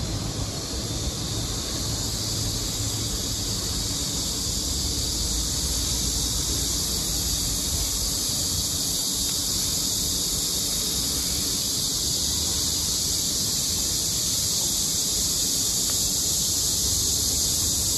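A steady, high-pitched chorus of insects buzzing in the trees and undergrowth, unbroken throughout, over a low outdoor rumble.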